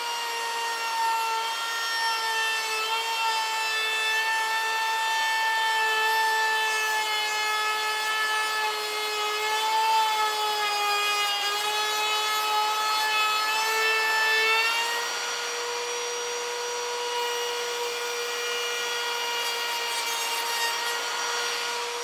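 Ryobi 18V One+ cordless palm router (P601) with a 3/16-inch round-over bit running and cutting a round-over along the edge of a pine board: a steady high motor whine, its pitch dipping slightly around the middle of the cut and holding steadier near the end.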